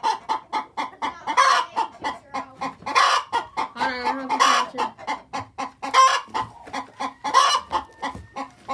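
Hens clucking: a rapid run of short clucks, several a second, with a louder, longer call breaking in about every second or so.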